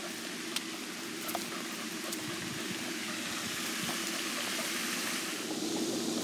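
Pond fountain spraying: a steady, even hiss of falling water.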